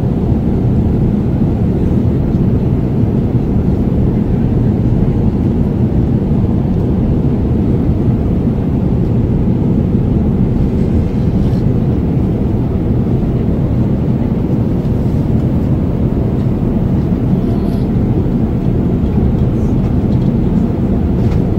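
Jet airliner cabin noise in cruise flight: a steady low rumble of engines and rushing air heard from inside the cabin.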